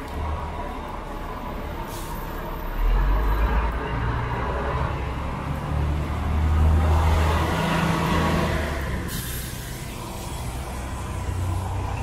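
Street traffic on a rain-wet city street: a heavy vehicle's engine rumbles and its tyres hiss on the wet road as it passes, swelling through the middle, followed by a short sharp hiss about nine seconds in.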